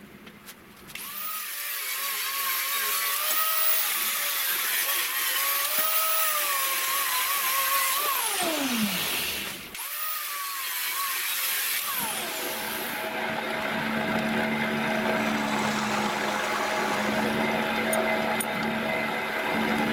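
Angle grinder cutting a steel flat bar clamped in a vise, its whine wavering under load, then winding down about eight seconds in; it starts again briefly and winds down once more. After that a drill press runs with a steady hum, drilling through the steel strip.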